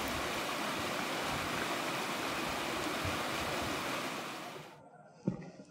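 Rushing water of a lake's outlet creek, a steady even rush that fades out a little after four seconds in. A single sharp knock comes near the end.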